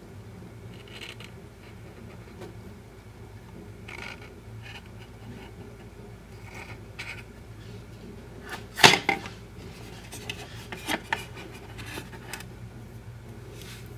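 Faint handling noises from hands working on a plastic model train body with a fine paint applicator, over a steady low hum. A sharp knock about nine seconds in, followed by a few smaller clicks over the next few seconds.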